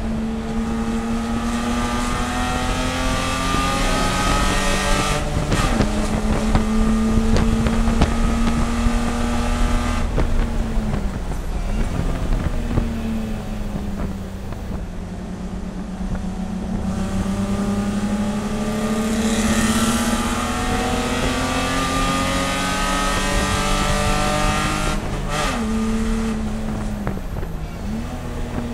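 A BMW E30 race car's engine pulling hard through the gears. It climbs in pitch and shifts up about five seconds in, then drops away with short revs as it downshifts around ten to thirteen seconds. It pulls up in pitch for a long stretch, shifts up again near the end, and blips once more on a downshift just after.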